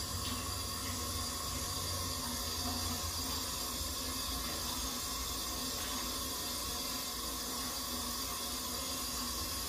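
Water running steadily from a bathroom faucet into a sink.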